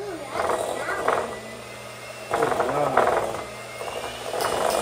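Electric hand mixer running steadily in a glass bowl of creamy mixture as liquid is poured in, its whir swelling louder three times.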